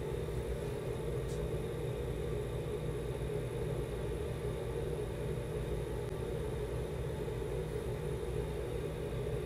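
Ceiling ventilation fan running with a steady low hum and rumble. A faint click comes about a second in.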